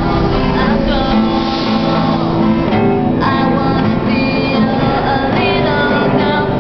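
Steel-string acoustic guitar strummed steadily, playing a song's chords.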